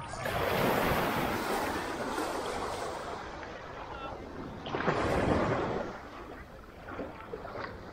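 Sea surf at the shore: two waves washing in, a broad rushing noise that swells about a second in and again about five seconds in, over a steady low wash.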